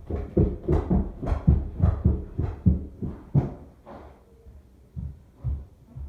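Quick footsteps, dull thuds about three a second, slowing to a few scattered steps after about three and a half seconds.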